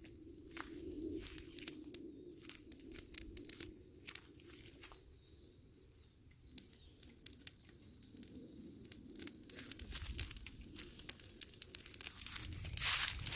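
Dry oak leaves crackling as they catch fire, with irregular sharp pops that grow busier and louder near the end as the flames spread.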